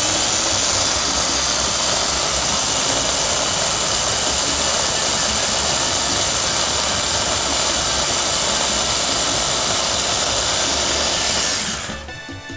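Ninja food processor motor running steadily under hand pressure, grinding raw green salsa ingredients, then switching off about twelve seconds in.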